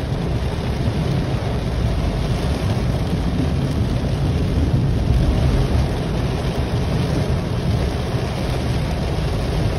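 Heavy rain falling on a car's roof and windshield, heard from inside the car: a steady dense hiss over a deep low rumble.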